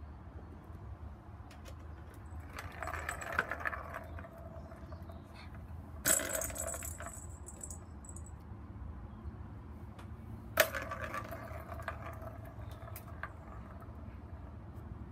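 Cat toys jingling and clattering in three short bursts as a cat plays with them, the later two each starting with a sharp click.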